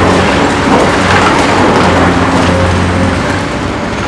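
Cat demolition excavator's diesel engine running steadily under load while its hydraulic demolition attachment breaks up a concrete building, with a dense crackle and crunch of rubble breaking and falling.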